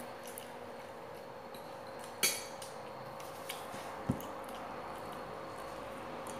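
Small clicks and clinks of tableware and a bamboo skewer being handled while eating, with one sharper clink about two seconds in and a dull knock about four seconds in, over a steady faint hum.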